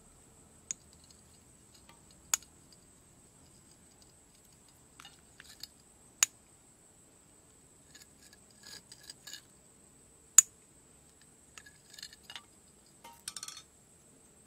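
Small metal parts and a metal rod handled against a car dynamo's cast-metal housing and rotor: scattered sharp clicks, the loudest about ten seconds in, between short bursts of light clinking and scraping.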